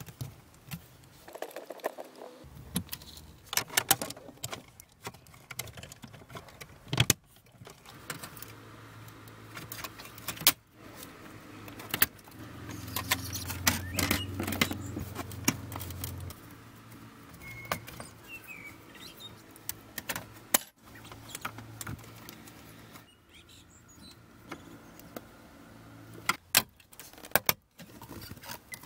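Clicks, knocks and rattles of a BMW E39's plastic dashboard trim, glove box and wiring connector being handled and fitted back into place by hand. A low steady hum comes in for about four seconds midway.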